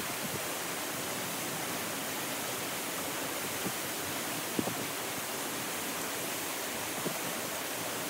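Steady rushing of a waterfall and the shallow stream running from it over rocks through a narrow gorge, with a couple of faint taps.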